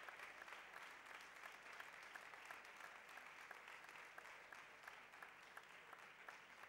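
Audience applauding, gradually dying down.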